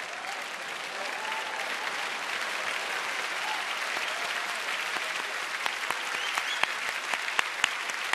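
Large audience applauding steadily, with a few louder individual claps standing out in the second half.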